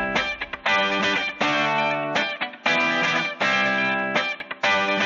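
Intro music of strummed guitar chords, played in short, choppy blocks that break off sharply.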